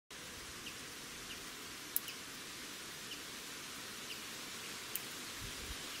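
Steady outdoor hiss with faint short bird ticks every second or so, and two sharp clicks, about two and five seconds in.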